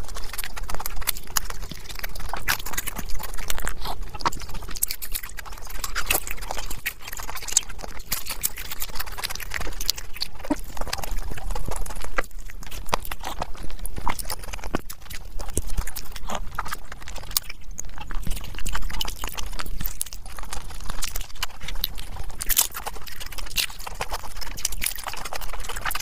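Close-miked chewing of fried samosas: a quick, irregular stream of crisp crunches and mouth clicks.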